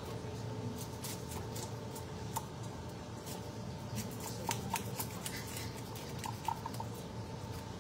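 Knife and hands working fish on a cutting board: scattered light clicks and scrapes over a faint steady hum.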